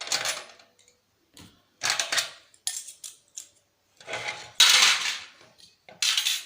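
Metal parts clinking and clattering in separate bursts as a PlayStation 3 is taken apart by hand, with screws and aluminium heatsink parts being handled. The loudest clatter comes a little past halfway.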